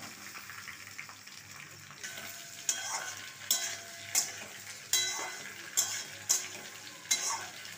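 Cut ivy gourds (kuduri) sizzling as they go into hot tempered mustard oil in a wok. From about two seconds in, a metal spatula scrapes and knocks against the wok in quick strokes, about one every three-quarters of a second, as they are stirred.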